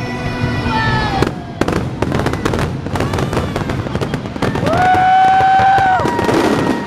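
A rapid barrage of fireworks bursts and crackles, many sharp reports in quick succession, typical of a fireworks finale. Loud show music plays under it, and a long held note rings out near the end.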